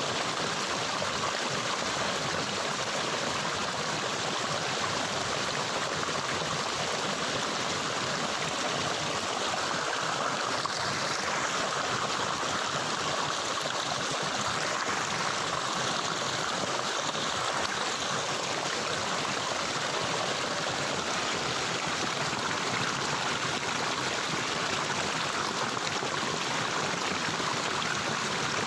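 Water of a stream flowing steadily, an even, unbroken rush of running water.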